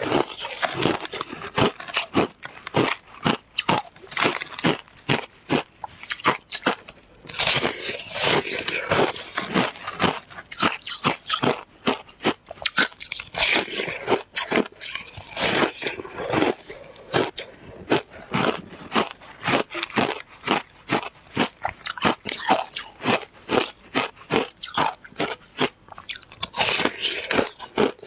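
Shaved ice being bitten and chewed close to the microphone: a fast, continuous run of sharp crunches, several a second.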